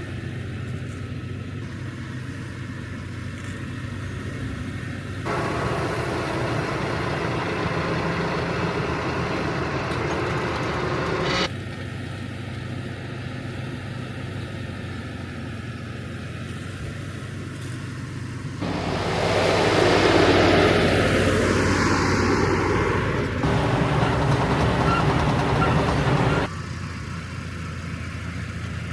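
Tractor engine running steadily, heard in several spliced segments. One stretch near the middle is louder and fuller, as the tractor works harder.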